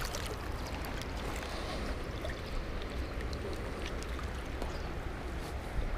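Steady rush of high water running through a nearly wide-open dam, with a few faint clicks.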